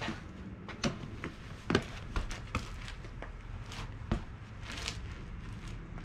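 Irregular knocks and scuffs of a rider mounting and riding a unicycle on concrete: shoes, tyre and pedals against the ground. The loudest knock comes just under two seconds in, and the knocks thin out after about four seconds.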